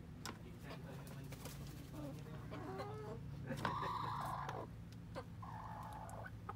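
Silkie chickens clucking and calling, with a louder, harsh squawk lasting about a second starting some three and a half seconds in.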